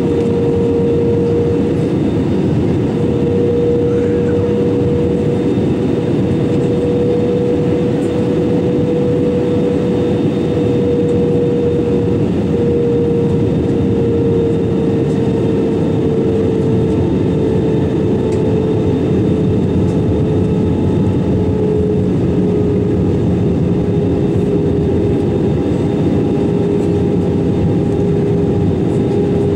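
Airbus A320-200 cabin noise in flight: a steady roar of engines and airflow, with a humming engine tone that slowly sinks in pitch.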